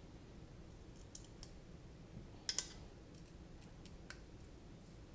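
A few light clicks of a hex screwdriver and small parts as a brushless motor is screwed onto a carbon-fibre drone arm. The loudest is a quick double click about two and a half seconds in.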